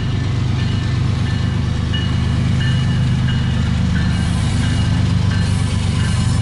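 Diesel locomotives of a CSX intermodal freight train running past close by: a loud, steady engine rumble with short high-pitched squeaks coming and going over it.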